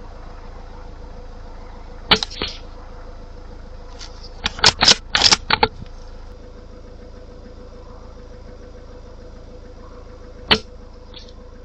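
Two sharp cracks from a suppressed .22LR rifle about eight seconds apart, with a quick run of clicks and knocks between them, over a steady low hum.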